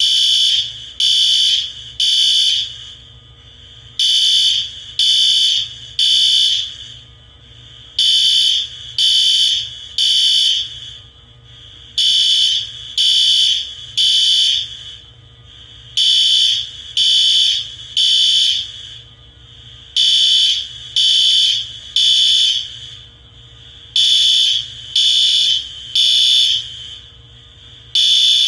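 Fire alarm sounding a high-pitched beep in the temporal-three evacuation pattern: three short beeps, a pause, then again, repeating steadily about every four seconds.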